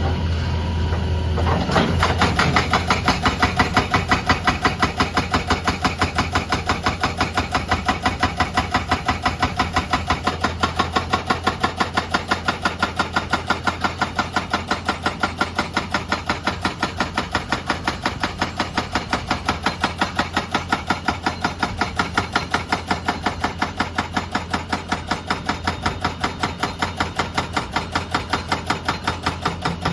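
Excavator-mounted hydraulic breaker hammering, a fast, steady train of sharp blows starting about two seconds in, over the steady drone of the excavator's diesel engine.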